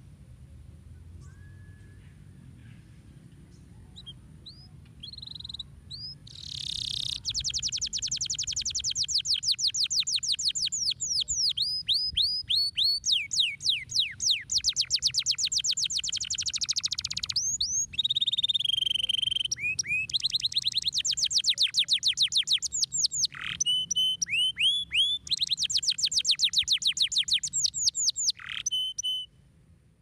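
Domestic canary singing. A few soft chirps, then from about six seconds in long rapid trills of high downward-sweeping notes alternate with slower swooping phrases. The song stops just before the end.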